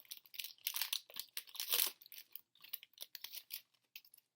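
Wrapper of a baseball card pack crinkling and tearing as the pack is opened. The crackles come in an irregular run and stop shortly before the end.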